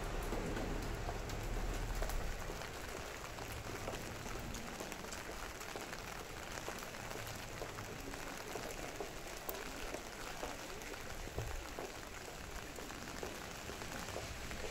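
Steady rain falling, an even hiss with many small, sharp drop ticks through it. A low rumble, loudest in the first two seconds or so, fades away.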